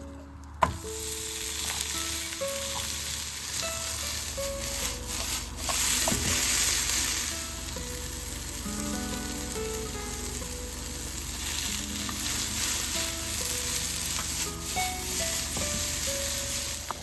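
Egg stir-frying in a hot frying pan: a steady sizzle as it is stirred, with a sharp knock of the utensil against the pan about half a second in. Soft background music plays underneath.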